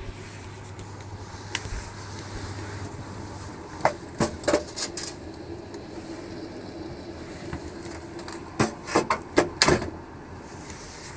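Two quick runs of sharp knocks and clacks, each lasting about a second, one a few seconds in and one near the end, over a steady low hum.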